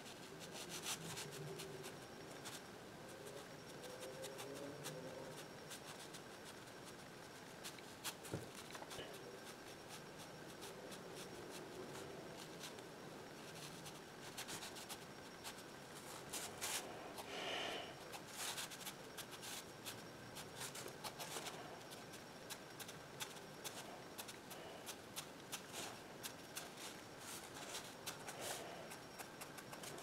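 Faint scratching of a fineliner pen tip on sketchbook paper, a run of many short, quick strokes. A brief louder pitched sound comes a little past halfway.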